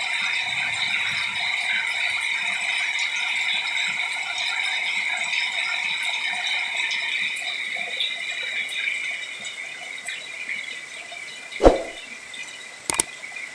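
Steady hiss of falling rain that eases off toward the end, with a sharp knock about three-quarters of the way through and a couple of clicks just before the end.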